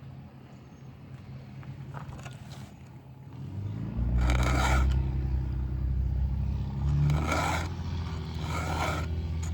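Round file drawn by hand across the cutters of a Stihl MS 500i chainsaw chain: three rasping strokes, about a second and a half apart, starting about four seconds in. A low rumble, like a vehicle engine, rises at the same moment and runs under the strokes.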